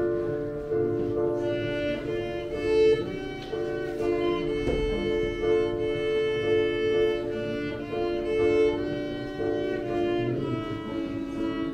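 Violin and piano duet: the violin plays a slow melody of long held notes over piano accompaniment.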